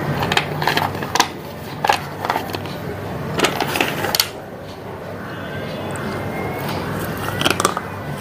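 Crunchy chewing: a brittle food crunched with the mouth closed, a quick run of sharp crunches over the first four seconds, then quieter chewing with a couple more crunches near the end.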